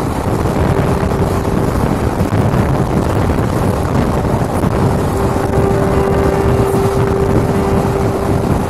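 Passenger train running along the track, heard from a coach window: a steady rumble with rushing wind buffeting the microphone, and a steady hum that grows louder about halfway through.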